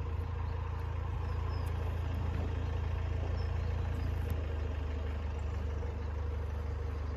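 A road vehicle's engine idling steadily, a low even hum. A few faint high chirps of a bird come through about a second in and again past the middle.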